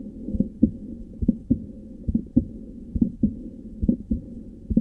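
Human heart sounds heard by auscultation, demonstrating a split first heart sound. Regular dull low thumps come in pairs, a little under once a second, over a steady low hum.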